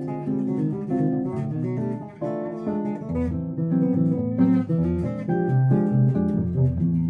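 Acoustic guitar comping chords over an electric bass line, both playing steadily.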